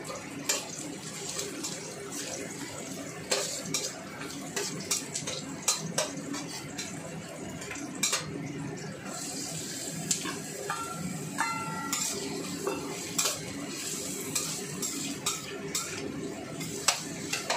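A metal spatula scraping and clanking against a steel wok in irregular strokes during stir-frying, over a steady hiss of food frying.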